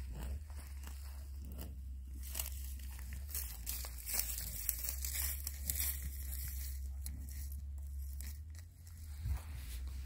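A cow grazing close up, tearing off mouthfuls of dry grass in a run of ripping, crunching bites, over a steady low rumble.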